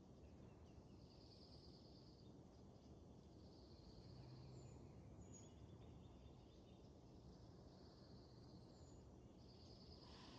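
Faint birdsong: high trills of about a second each repeat every couple of seconds, with a few short, very high chirps between them, over a steady low background rumble.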